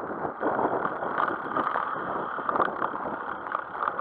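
Wind buffeting the microphone of a bicycle-mounted camera while riding, with tyre and road rattle coming through as a steady rush full of short clicks.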